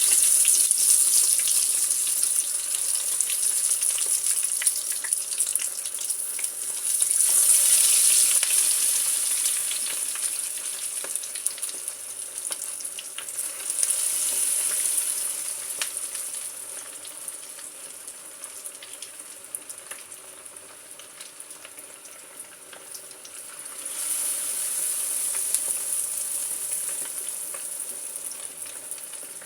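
Chicken pieces for karaage deep-frying in hot oil: a steady sizzle with many small pops, swelling louder for a few seconds several times.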